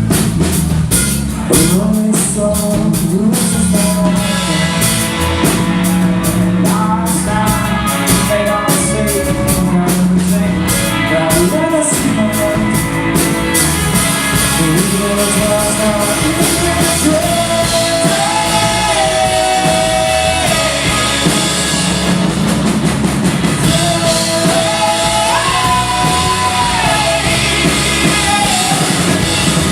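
A rock band playing live: a drum kit with fast cymbal and drum strokes at first, under a sung melody with long held notes.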